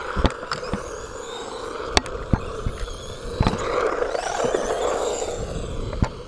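A 1/16-scale remote-control truck running with a steady electric whine and scattered sharp clicks from its tyres and chassis. About halfway through the motor revs up and the wheels spin, as they do in a drift, then it eases off again.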